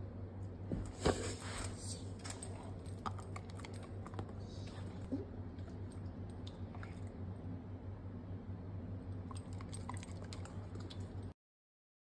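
Scattered small clicks and taps over a steady low hum, with the loudest cluster of clicks about a second in. The sound cuts off abruptly near the end.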